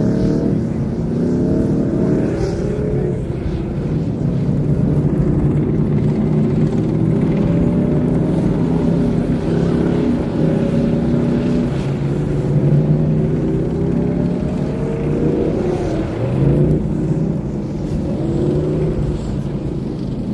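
Several tanks driving across the field, their engines running together in a continuous low din. The engine pitches slowly rise and fall as the tanks move.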